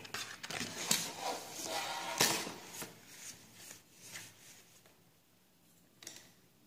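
Handling noise: paper rustling and scraping with several light clicks and knocks, busiest over the first three seconds or so. It then fades to faint ticks, with one more short knock about six seconds in.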